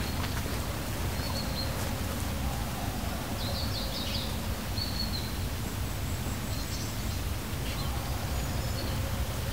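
Small birds chirping now and then, with a quick run of chirps about halfway through, over a steady low outdoor rumble.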